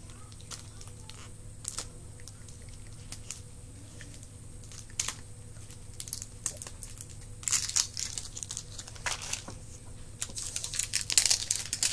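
Plastic wrapping on a candy-filled surprise egg crinkling and tearing as it is pulled off by hand, with scattered clicks; the crinkling gets louder and busier in the last few seconds.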